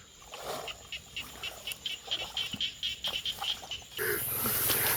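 Frogs calling in a flooded field: a quick run of short, repeated high calls, a few each second. A hissing noise comes in about four seconds in.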